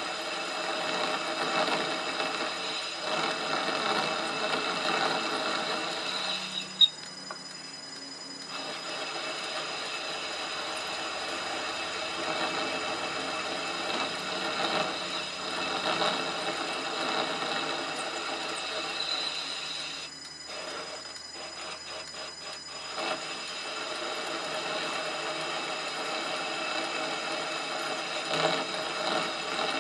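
Metal lathe running, turning a miniature engine crankshaft between centres: a steady whine of the motor and gearing with the tool cutting. There is a single sharp click about seven seconds in, and the sound thins out briefly twice, near seven seconds and again around twenty seconds.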